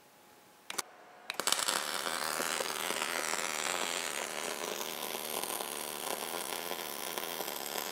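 MIG welding arc striking about a second and a half in, just after a short click, then burning steadily with an even hiss at 3/8-inch wire stickout, drawing about 145 amps at 20 volts.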